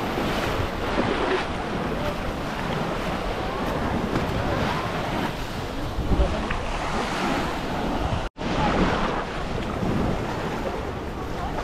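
Wind buffeting the microphone over the wash of sea water, a rough steady noise that cuts out completely for a moment about eight seconds in.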